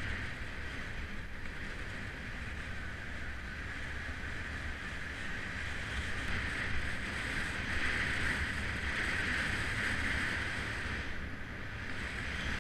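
Wind buffeting the microphone of a camera on a moving road bicycle, over a low rumble of tyres on asphalt. It is steady, grows louder in the second half and eases off near the end.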